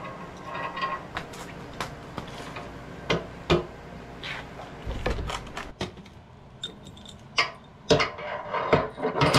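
Metal plow parts and hardware being handled, giving irregular sharp clinks and knocks, several close together in the second half.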